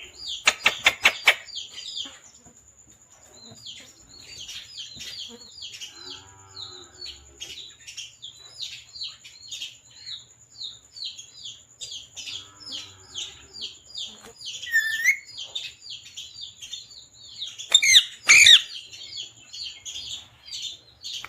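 Parrot chirping: a long run of short, quick high chirps, with louder squawking calls about a second in and again near 18 seconds.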